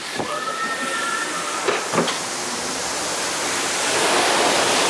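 Wooden ore-car door being unlocked: a latch click, then a metal hinge squeal lasting about a second and a half that ends in a knock. A steady rushing hiss follows and grows louder near the end.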